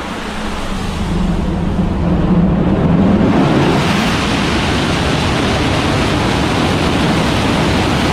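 Hybrid rocket engine on a test stand: a rushing noise builds over the first few seconds. About four seconds in the motor ignites and fires with a loud, steady, hissing noise.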